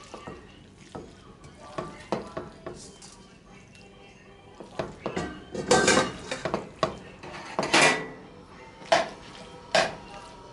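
A metal spoon clanking and scraping against a bowl and a skillet as sliced raw steak is scraped into a pan of onions and peppers. The clatter is irregular, with the loudest knocks about six and eight seconds in.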